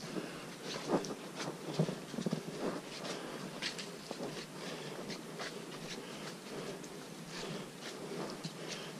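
Footsteps on a muddy, leaf-strewn forest trail: irregular steps and scuffs, a couple of louder ones about one and two seconds in.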